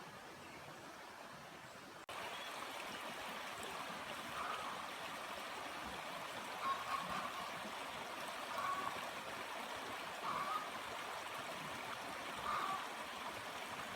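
Steady rush of running water that steps up in level about two seconds in, with faint short sounds recurring about every two seconds.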